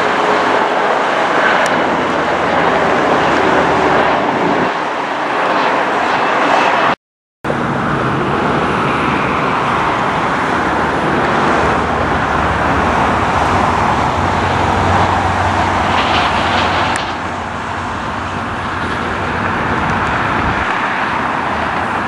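Steady loud roar of jet airliners and road traffic, broken by a half-second silence about seven seconds in.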